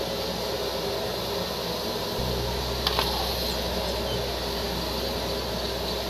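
Steady rushing noise of milk boiling hard in a large aluminium kadai over a strong flame as it is stirred with a long metal ladle, with one sharp click about three seconds in.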